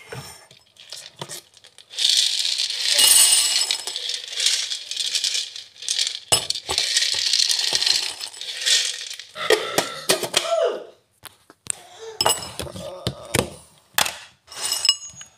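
Dry cereal puffs poured from a container into a bowl: a dense rattling patter from about two seconds in until about nine seconds in. After that come scattered clinks and knocks of the container and spoon against the bowl.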